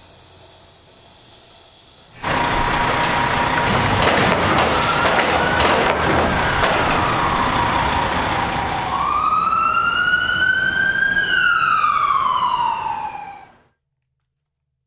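Sirens wailing over loud, dense vehicle noise that starts suddenly about two seconds in. Near the end one siren rises and then falls in pitch before the sound cuts off.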